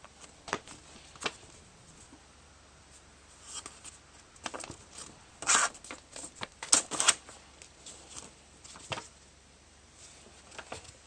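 A sheet of paper being handled and folded: short, separate crinkles and rustles at uneven intervals, busiest around the middle.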